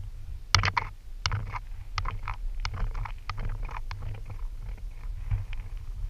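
Irregular sharp clicks and light taps, about a dozen, thickest in the first four seconds and sparser after, over a steady low rumble like wind on the microphone.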